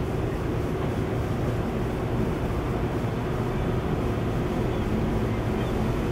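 Fishing boat's inboard engine running steadily at low speed, a continuous low rumble as the boat comes into the harbour.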